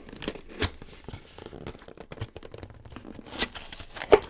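A cardboard shipping box being opened by hand: cardboard scraping and crinkling, with scattered sharp clicks and rips and one louder crack near the end.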